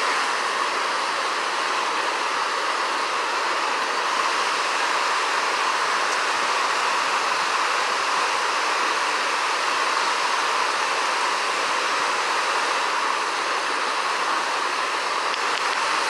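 Big Cottonwood Creek rushing steadily over rocks, a constant even roar of fast-flowing water.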